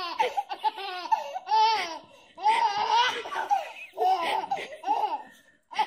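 Baby laughing hard in several high-pitched bursts with short pauses between them.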